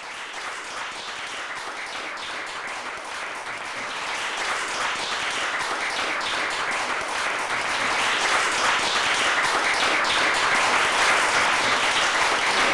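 Audience applauding and clapping, the applause fading in and growing steadily louder.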